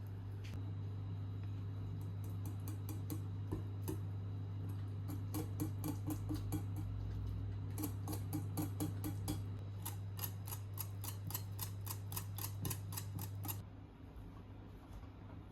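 A small electric motor running with a steady low hum, with rapid, regular clicking over most of it. Both stop together near the end.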